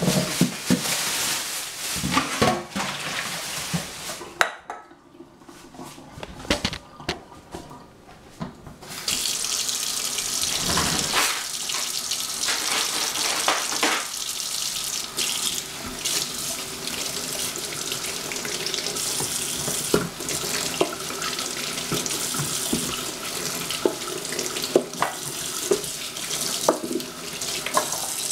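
Kitchen tap running into a sink, with knocks and clatter of things handled under the water. The water stops about four seconds in and comes back on about nine seconds in.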